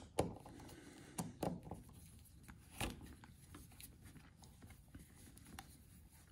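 A few faint clicks and light handling sounds from a screwdriver and hands working on a power-folding mirror's mount, spread over the first three seconds, then only faint rustling.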